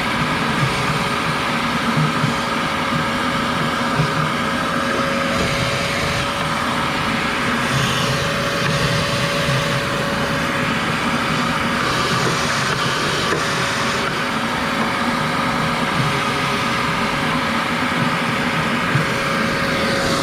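Sun Joe electric pressure washer running steadily: a constant motor whine over the hiss of the water jet spraying.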